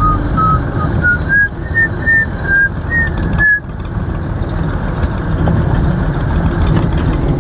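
Someone whistling a string of short notes that climb in pitch, about three a second, stopping after about three and a half seconds. A loud, steady low rumble runs underneath.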